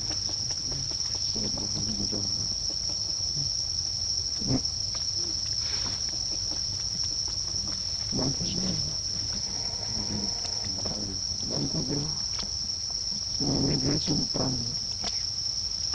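Steady, high-pitched insect chorus droning without a break, with low voice-like sounds coming and going, loudest near the end.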